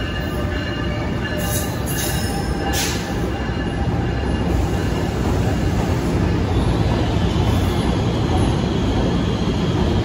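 NJ Transit bilevel passenger coaches rolling past on steel wheels: a steady heavy rumble that grows slightly louder. In the first few seconds there is faint wheel squeal and a couple of sharp clacks.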